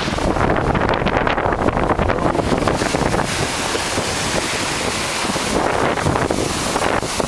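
Storm wind buffeting the microphone over seas rushing past a Lagoon 380 catamaran as it surfs down large breaking waves under bare poles. The sound is gusty and crackly for the first three seconds, then a steadier rush.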